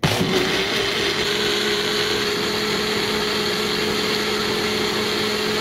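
Magic Bullet personal blender motor switched on abruptly and running steadily with a constant hum, blending water with sugar, mint leaves and lemon juice into a frothy drink.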